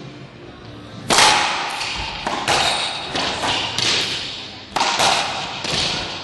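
Pro racquetball rally: the serve cracks off the racquet about a second in, then a fast run of sharp cracks as the ball is struck by racquets and slams off the court walls, each echoing briefly in the enclosed court.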